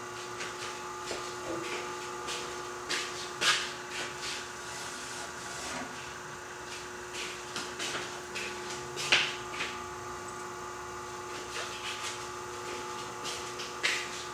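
Steady machine hum of running print-shop equipment, with scattered knocks and clicks from things being handled; sharper clacks come about three and a half seconds in, at about nine seconds and near the end.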